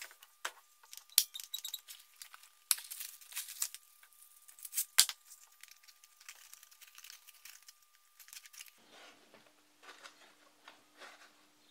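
Handling a hand belt sander and fitting a new cloth-backed sanding belt: sharp metallic clicks and clinks, one ringing briefly about a second in and a loud one about five seconds in, with a stretch of crackling around three seconds. Near the end, soft rustling of the belt being slid over the rollers.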